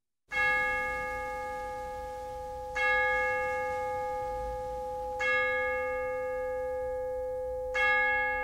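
A bell tolling slowly: four strokes about two and a half seconds apart, each ringing on until the next. It is memorial tolling for lost submarines.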